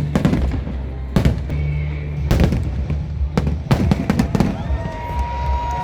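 Aerial fireworks bursting in a string of about six sharp bangs, with steady low music underneath. A long high whistle starts near the end.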